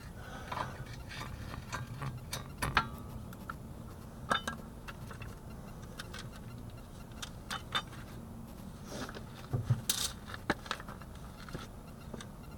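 Metal hand tools clicking and clinking in irregular taps, with a few sharper clanks scattered through, during work on a car's tie rod end.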